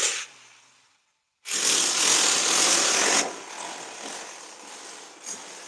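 A power chipping hammer chiselling into a plastered brick wall, in two loud bursts. The first stops just after the start. The second lasts nearly two seconds and stops about three seconds in, leaving a much lower steady noise.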